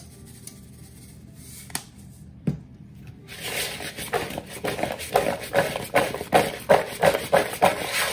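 Chunks of raw potato, carrot and onion being tossed in a large mixing bowl, clattering against the bowl in quick repeated strokes, about three a second, from about three seconds in. Before that, a faint sprinkle of salt.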